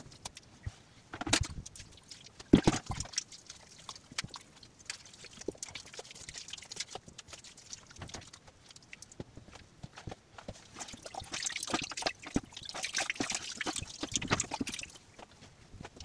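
Hands setting wet mud and stones along the top of a stone wall: scattered knocks and taps of stone, with wet squelching, and two louder knocks about a second and two and a half seconds in. Near the end comes a few seconds of rustling and scraping.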